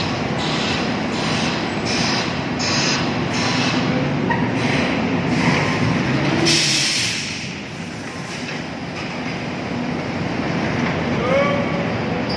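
Steady rumble of vehicles and machinery on a ro-ro ship's cargo deck. Through the first half a pulsing hiss repeats about twice a second. About halfway in comes a louder burst of hiss, and near the end a short rising squeal.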